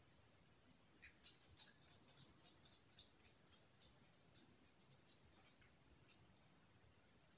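A Maltese dog's claws clicking on a hard floor as it walks away: a run of faint, light, irregular ticks, several a second, starting about a second in and thinning out near the end.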